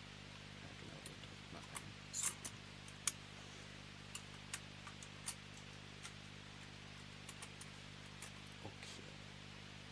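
Scattered light clicks and taps as the metal retention levers and load plate of an LGA2011-3 CPU socket on an X99 motherboard are worked by hand, over a steady low hum.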